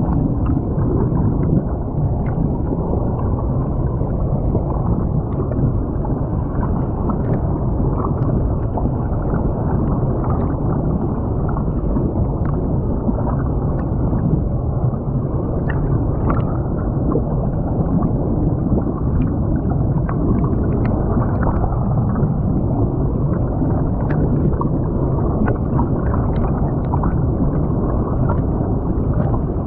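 Creek water rushing and gurgling, heard muffled through a camera microphone submerged in the stream. It is a steady noise with scattered faint clicks.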